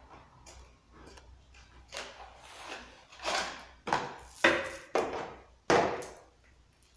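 Gloved hands opening a small cardboard box and pulling out a new chainsaw chain: cardboard and wrapping rustling and scraping, with a run of louder handling noises from about three seconds in as the metal chain comes out and rattles.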